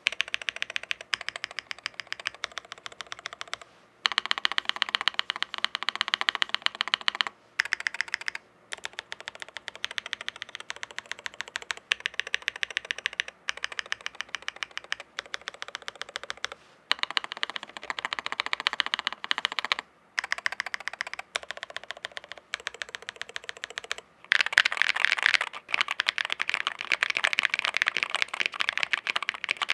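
Typing on a Chilkey ND75LP low-profile mechanical keyboard: fast, continuous keystrokes in runs with brief pauses between them. The typing gets louder about three quarters of the way in.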